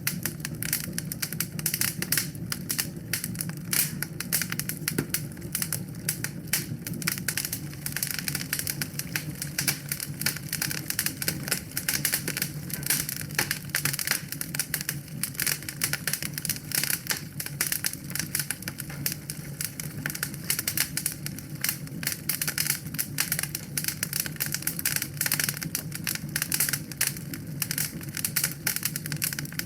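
Wood fire in a fireplace crackling steadily, dense irregular pops and snaps over a low rumble of the flames.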